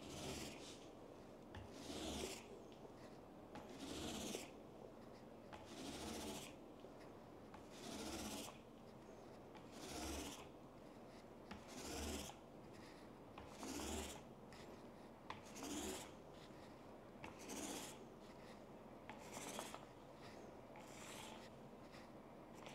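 Small paint roller rolled over a wet-painted wooden tabletop in slow back-and-forth strokes: a faint rubbing swish about every two seconds. It is a final smoothing pass to even out the roller lines in the black paint.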